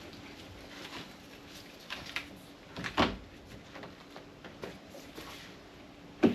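Scattered clunks and rattles of car door parts being handled, with two loud knocks, one about three seconds in and one near the end, over a faint steady hum.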